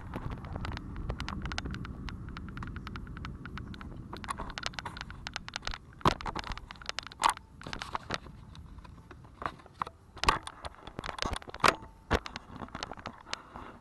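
Heavy raindrops hitting a hard surface close by, irregular sharp taps with a few louder ones, at the start of a thunderstorm downpour. A low rumbling noise underneath fades away about halfway through.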